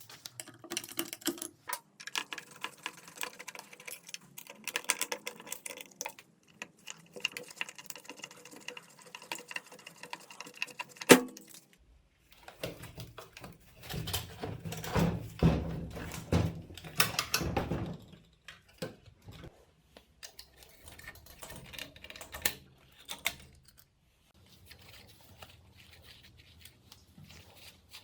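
Irregular clicking and tapping of small tools and parts being handled, with one sharp click about eleven seconds in and a busier stretch of low rattling handling noise in the middle.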